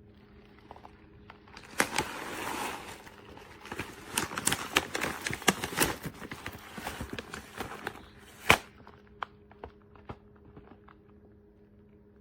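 Plastic bag of dry bird-food pellets being handled: crinkling with many small clicks and rattles for several seconds, a sharp click near the end, then a few scattered ticks.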